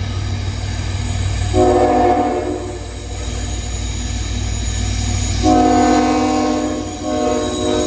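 Canadian National Tier-4 diesel locomotive's air horn sounding for a grade crossing: a short blast about a second and a half in, a longer one starting around five and a half seconds, and another starting just after it near the end. A steady low rumble from the approaching train runs underneath.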